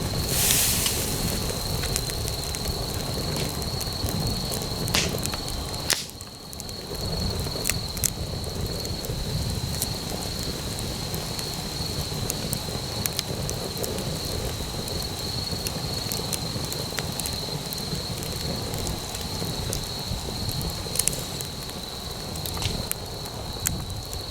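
Campfire burning, crackling with sharp pops scattered throughout and a brief louder rush just after the start. A thin steady high-pitched whine runs underneath.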